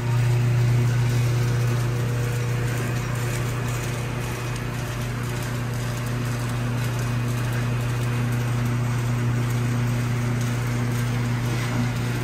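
Steady low machine hum with an even, spray-like hiss: a Bitimec Wash-Bot single-brush bus washer running its brush and water against the side of a coach.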